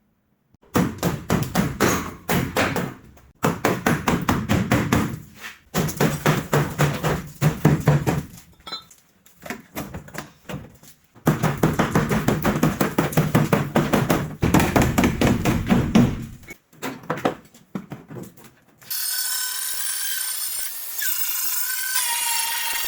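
Hand-tool work in several runs of rapid, rasping strokes, each a few seconds long with short pauses between them. In the last few seconds a power tool takes over, running steadily with a thin high whine.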